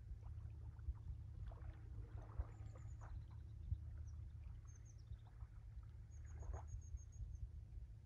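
Calm sea-shore ambience: a steady low rumble with small waves lapping now and then. High, thin chirps of small songbirds come through, with a quick trill of them near the end.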